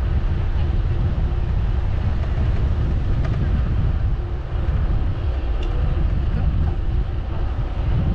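Wind buffeting the microphone during a bicycle ride: a steady low rumble, with a few faint ticks.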